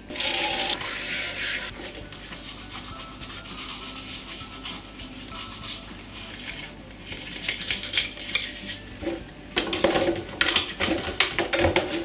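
Tap water running into a plastic basin for about the first second and a half, then a toothbrush scrubbing a washing machine's plastic detergent drawer in soapy water. Near the end the scrubbing turns to quick, rapid strokes, with plastic knocking against the basin.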